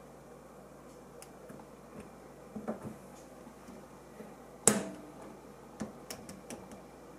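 Small clicks and taps of a kitchen faucet's valve being fitted back into the faucet body by hand. One sharp, louder click comes about two-thirds of the way through, with lighter ticks before and after it.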